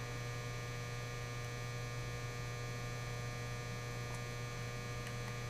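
Steady low electrical hum with a fainter, higher thin tone above it. Two faint light ticks come about four and five seconds in.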